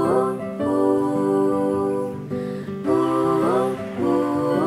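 Background music: a slow, guitar-led piece with held notes that slide up in pitch a few times.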